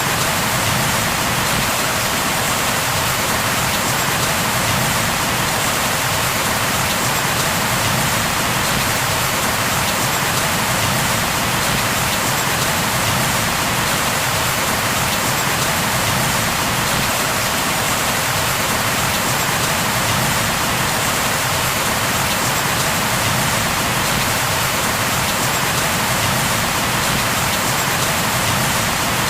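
Steady rain falling, an even, unbroken hiss of drops with no thunder or other events.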